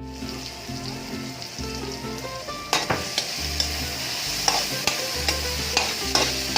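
Garlic, onion and tomatoes sautéing in hot oil with a steady sizzle. From a little under halfway in, a spatula stirs the pan, clicking and scraping against it every half second or so.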